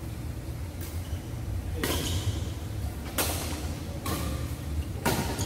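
Badminton rackets striking the shuttlecock in a rally: four sharp hits about a second and a half apart, the first faint, each ringing briefly in the echoing hall over a steady low hum.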